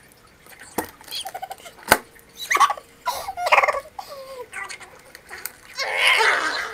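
Squeaky, high-pitched chipmunk-like voices and giggles from breathing helium out of a balloon, with a few sharp clicks, then a rush of gas near the end as the balloon's neck is held to the mouth.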